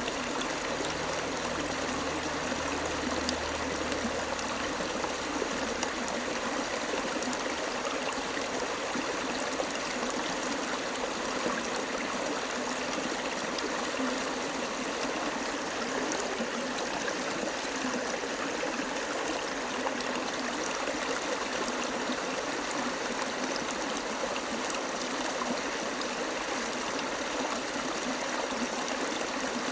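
Running water, a stream flowing in a steady, unbroken rush.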